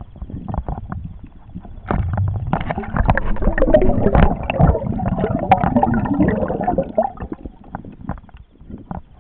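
Underwater water noise picked up by a camera: a run of sharp clicks and crackles, with a bubbling gurgle in the middle that fades out near the end.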